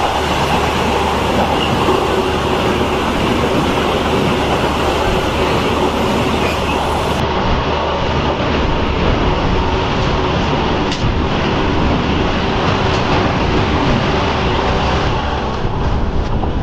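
Vande Bharat Express electric multiple-unit train passing close by at speed on the adjacent track: a loud, steady rush of wheels on rail with a few faint clicks.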